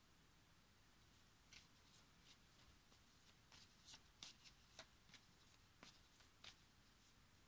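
Faint handling and shuffling of a deck of oracle cards: about a dozen light, crisp clicks and swishes, starting about a second and a half in and stopping shortly before the end.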